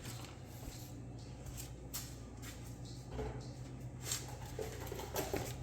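Faint handling sounds, a few soft clicks and rustles, over a steady low hum.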